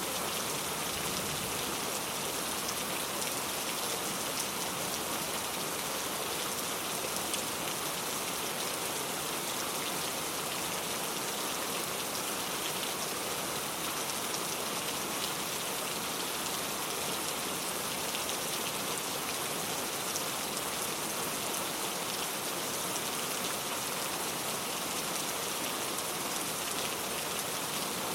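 Steady rain falling, an even patter of raindrops with no change in intensity.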